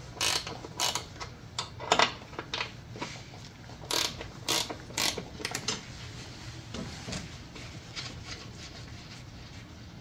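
Hand socket ratchet clicking in short runs as it backs off 10 mm nuts at the back of a 3.6L Pentastar V6's intake, with the runs thinning out and growing fainter after about six seconds.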